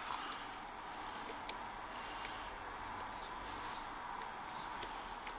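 Faint, irregular ticks and light scrapes of a lock pick working the pins of a Yale Y90S/45 padlock's six-pin tumbler cylinder while it is single-pin picked under tension.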